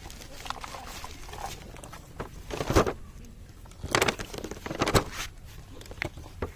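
Handling noise: irregular knocks and rustling as objects are moved about, with four louder thumps through the middle and later part.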